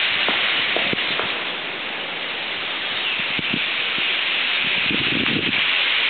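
Massed calling of an enormous flock of European starlings at their winter roost: thousands of overlapping chattering calls merging into a steady, loud hiss-like wash.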